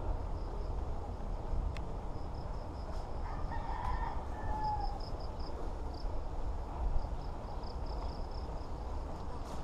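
A rooster crowing once, about three and a half seconds in, its call ending in a falling tail, over a steady low rumble.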